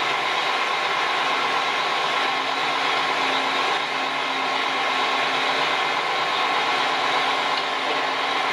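Mobile crane's diesel engine running steadily under load.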